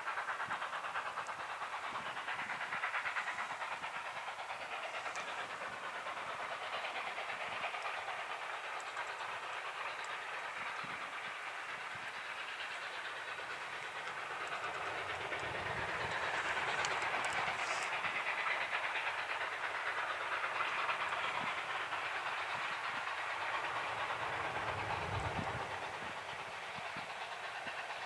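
Distant narrow-gauge steam locomotive working a long train, its exhaust a steady, rough rushing chuff that swells louder in the second half.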